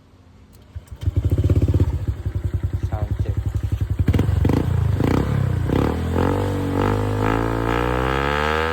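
Honda Click 125 scooter's single-cylinder engine through an aftermarket REV pipe exhaust. A loud, pulsing exhaust note comes in about a second in and runs unevenly for a few seconds. Near the end the engine revs up with a rising pitch.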